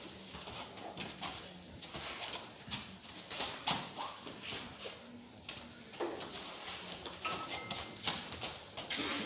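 Bare feet shuffling and stamping on foam mats and hands slapping skin as two grapplers hand-fight standing: irregular slaps and thuds, the loudest about three and a half seconds in and near the end.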